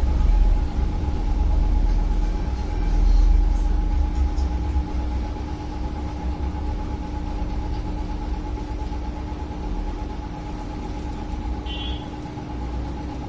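Low, fluctuating rumble like a running engine, loudest about three seconds in and easing later, over a steady hum.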